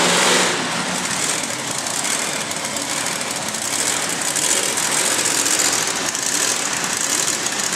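Monster truck engine running loud and steady as the truck drives past at low speed.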